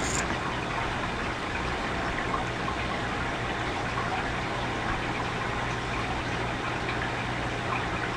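Steady background hiss with a faint low hum, unchanging throughout: the noise floor of the recording microphone, with no other sound.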